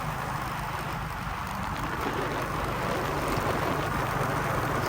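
Small motorcycle engine running steadily while riding, with road and wind noise, slowly getting louder.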